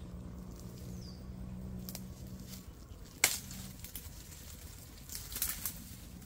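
A KRM Bamboo knife with an L6 steel blade chopping through brush: one sharp chop about three seconds in, then a short run of crackling and snapping from the cut vines near the end.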